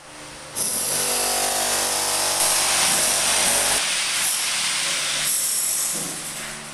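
A power tool starts abruptly about half a second in and runs loud for about five seconds, changing pitch partway through, then dies away near the end.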